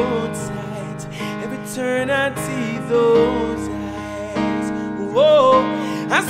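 Male voice singing a song with acoustic instrumental accompaniment.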